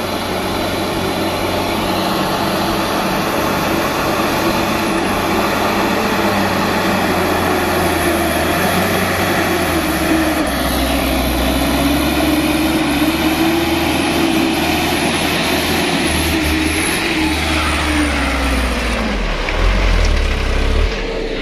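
Diesel engine of a light truck loaded with oil palm fruit bunches, labouring as it climbs a muddy slope. The engine note rises and falls, and a heavier low rumble builds near the end as the truck draws close.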